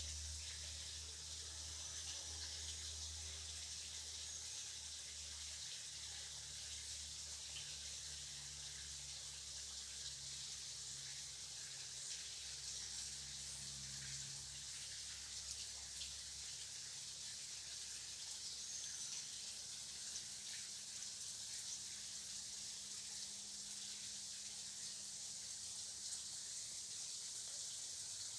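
Rainforest ambience: a steady high hiss with a few faint bird chirps.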